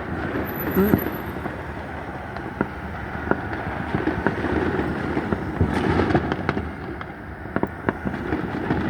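Consumer fireworks going off around a neighbourhood: scattered bangs and pops at irregular intervals, some sharp and some more distant, over a steady background rumble.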